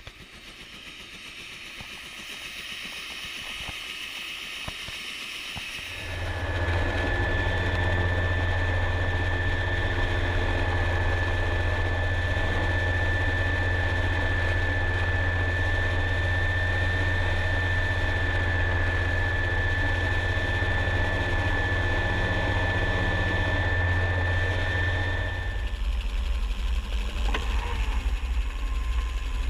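Helicopter in flight, heard through a camera mounted on its airframe: a steady low drone with a steady high whine over it. The sound jumps louder about six seconds in, and the whine drops out near the end while the drone carries on.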